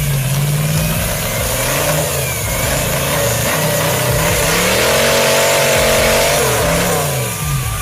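An engine revving up and down repeatedly, its pitch rising and falling every second or two and held highest for a couple of seconds near the middle.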